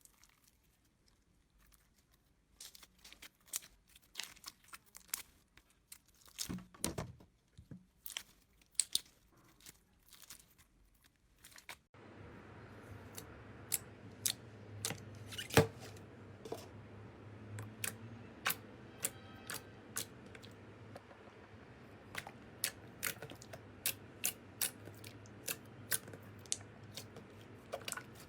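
Slime being squeezed and pressed by hand, making sticky clicks, pops and crackles. About halfway through, a steady faint hiss comes in under quicker, more regular clicking.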